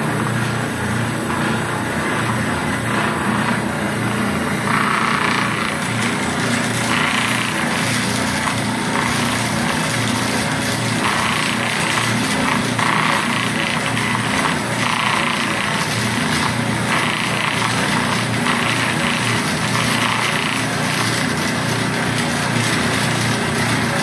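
An old electric motor spinning a wire wheel brush, running with a steady hum, while the wire brush scrubs rust off a band sawmill blade drawn beneath it. The scratchy scrubbing grows louder in stretches from about five seconds in as the blade is worked under the brush.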